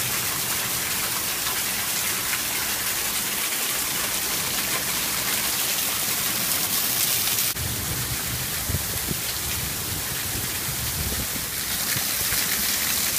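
Heavy rain pouring down onto lawn and pavement, a steady loud hiss; about halfway through the sound changes abruptly and a low rumble joins it.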